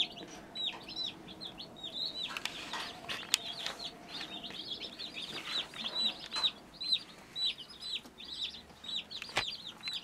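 A brood of day-old meat chicks (broiler chickens) peeping continuously: many high, short, falling peeps overlapping several times a second. Two sharp clicks come through, about a third of the way in and again near the end.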